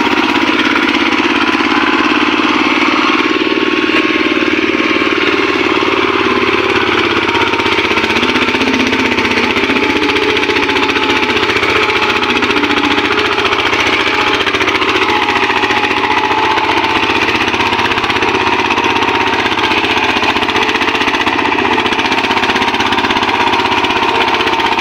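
Single-cylinder diesel engine of a two-wheel walking tractor running steadily under load, pulling a trailer, with a fast, even beat.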